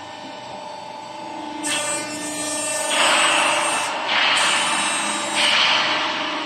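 Back gauge of a 250-ton CNC press brake driving its stop fingers into position: under a steady machine hum, a high motor whine and hiss come in several spells of about a second each, starting about a second and a half in.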